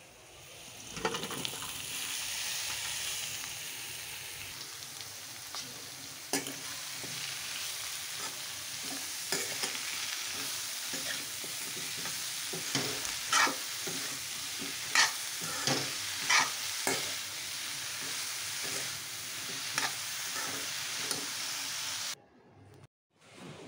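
Chopped spinach and potato pieces frying in hot oil in a metal kadai, sizzling steadily from about a second in, while a metal spatula stirs them, scraping and knocking against the pan, with the sharpest knocks in the middle. The sound cuts off abruptly near the end.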